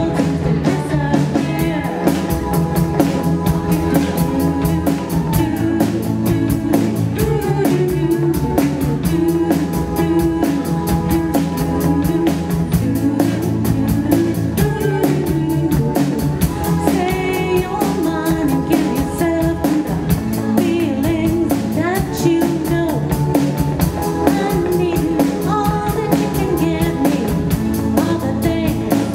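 Live rock band playing a song: electric guitar, electric bass, drum kit and keyboard, with lead vocals sung over them.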